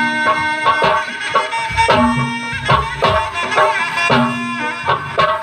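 Live Sundanese kendang pencak ensemble playing: large kendang barrel drums beating a quick, steady rhythm of strokes under a continuous melody, likely from a tarompet shawm.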